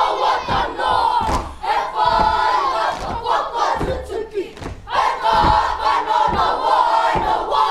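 A Māori kapa haka group of young voices shouting a haka chant in unison, in short forceful phrases, with stamping and body-slap thuds in time with the words.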